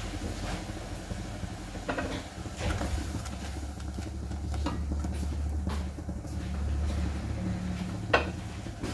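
Thick tamarind chutney bubbling as it reduces in an aluminium saucepan on a gas burner, over a steady low rumble. A spatula scrapes and knocks in the pan a few times, the sharpest knock about eight seconds in. The chutney is being cooked down until it turns glossy.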